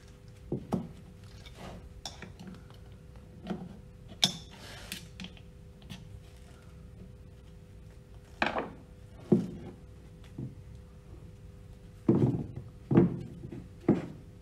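Metal pump parts and a screwdriver handled on a wooden workbench while a shaft seal is taken out of its seal cover: a series of separate dull knocks and thunks, with a short scraping rattle about four seconds in.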